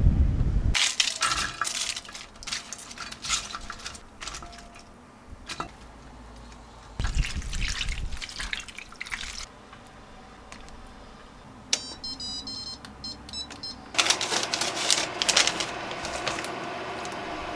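Kitchen work sounds: irregular splashing and clattering like water running and dishes or utensils being handled, with a short run of high electronic beeps about two-thirds of the way through.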